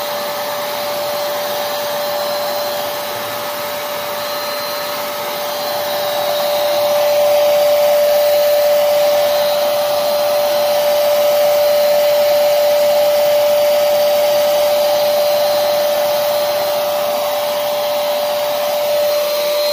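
Paint Zoom electric paint sprayer's blower running steadily, pushing air through a hose to an attached metal spray gun: a steady hum with one strong tone, a little louder from about six seconds in.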